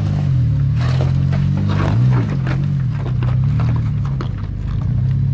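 Chevy Colorado ZR2 pickup's engine running at low speed, its pitch shifting a little as the truck crawls over loose rock, with irregular crunches of rock and gravel under the tyres.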